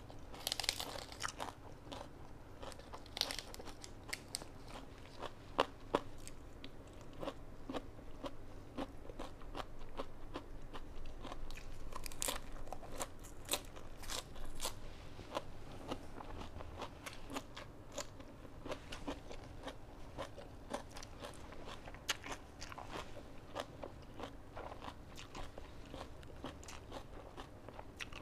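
A person biting and chewing mouthfuls of crisp fresh vegetables wrapped with spicy salad and rice noodles: a steady, irregular run of crunches.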